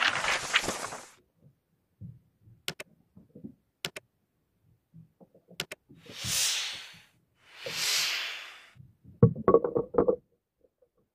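Muffled knocks and thumps as a fisherman works a wooden stick over a freshly landed mahi-mahi in a small outrigger boat, with a cluster of hard knocks near the end. Before them come a few sharp clicks and two long hissing swells.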